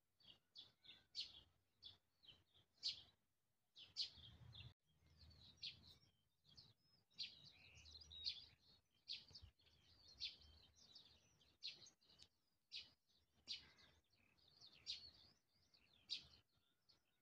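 Songbirds chirping and singing faintly, short high calls coming every half second or so.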